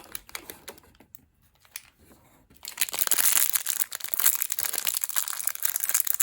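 Plastic packaging of a small toy figure crinkling as it is opened by hand, starting about two and a half seconds in after a few faint clicks.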